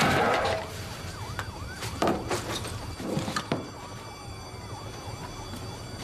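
Emergency-vehicle sirens wailing in the distance, several overlapping glides, with a few sharp bangs about two seconds and three and a half seconds in.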